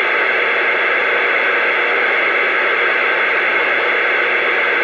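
Steady static hiss from a two-way radio receiver on an open channel between transmissions, with a few faint steady tones in it.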